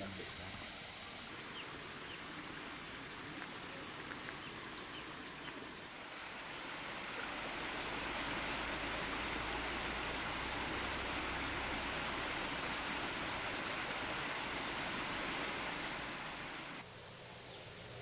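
Insects shrilling in forest, one steady high-pitched tone over a soft even hiss that grows fuller about six seconds in.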